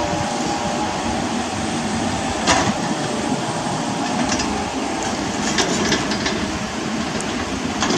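Komatsu mini excavator running steadily while digging, with a few sharp metallic clanks, the loudest about two and a half seconds in.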